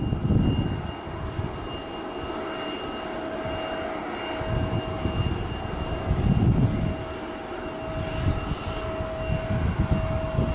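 Boeing 737-800's jet engines running at low thrust as it rolls along the runway, with a steady whine. Gusts of wind buffet the microphone with low rumbles, strongest at the start, about six seconds in, and at the end.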